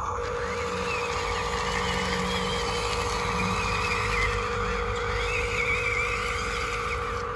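Radio-controlled model vehicle running, its electric motor and gears giving a steady whine with a higher wavering tone above it.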